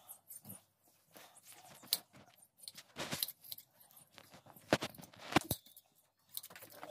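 Large metal scissors snipping through a sheep's thick fleece during hand shearing: a handful of sharp, irregular snips.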